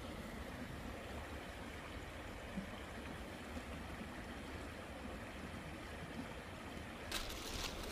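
Mountain river flowing as a steady, even rush of water. Near the end a crackling rustle comes in over it.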